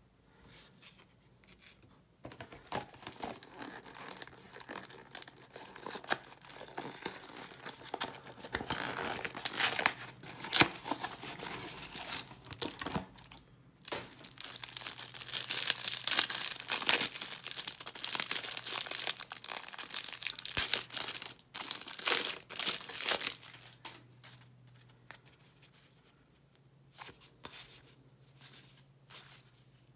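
Clear plastic wrapper around a stack of baseball cards being torn open and crinkled, a dense crackling that runs for about twenty seconds and is loudest in its second half. The loose cards are then flicked through, with light ticks.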